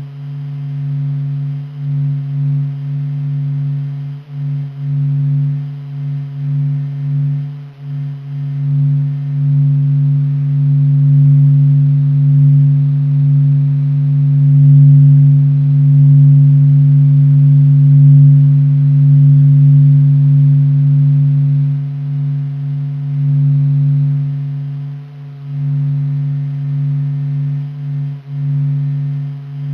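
Sonification of the Sun's vibrations recorded by NASA's SOHO spacecraft and converted into sound. It is a deep, steady hum with a few fainter higher tones above it. The hum pulses unevenly in loudness and swells louder through the middle.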